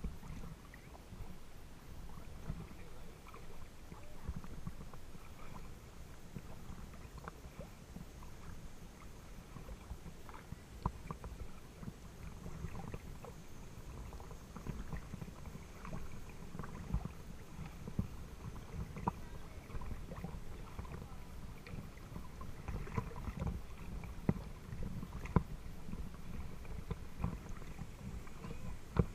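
Water lapping and splashing against the hull of a small boat moving through choppy water, over a steady low rumble, with irregular small splashes and ticks that come more often in the second half.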